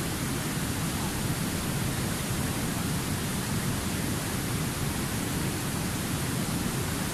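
River rapids rushing over rock: a steady, unbroken roar of white water.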